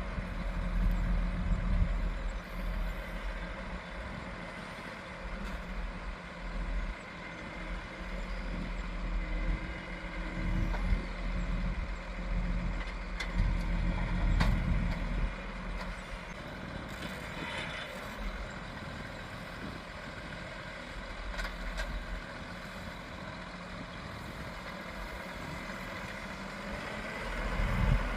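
Heavy farm machinery engine running with its load rising and falling, with a few knocks and a brief hiss partway through.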